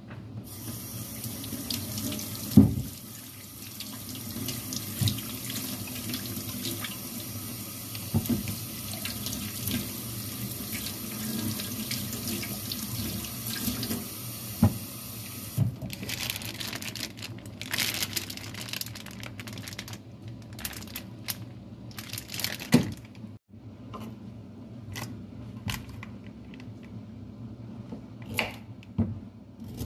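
Kitchen tap running into a stainless steel sink as carrots are rubbed clean under the stream, with a sharp knock about two and a half seconds in; the steady running stops about halfway through. After that come irregular short knocks and scrapes, ending with a knife scraping a carrot.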